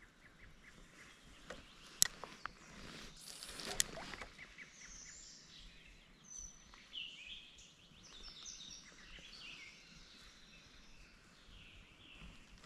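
Faint songbirds singing in quick short chirping phrases, mostly through the middle stretch, over quiet outdoor hiss, with two sharp clicks about two and four seconds in.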